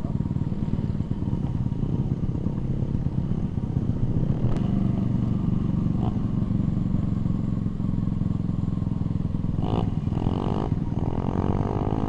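Kawasaki KLX D-Tracker's single-cylinder four-stroke engine running under throttle, heard close up from the rider's helmet. The revs swell about four to five seconds in. Near the end a higher engine note wavers up and down.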